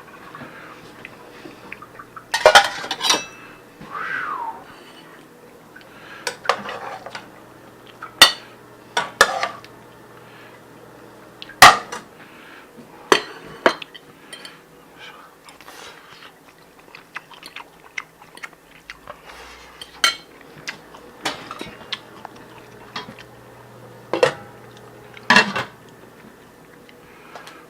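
Cutlery clinking and knocking against dishes during a meal: irregular sharp clinks, a second or more apart.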